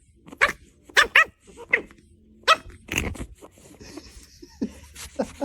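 A dog barking: about six short, sharp barks over the first three seconds, then a few fainter ones.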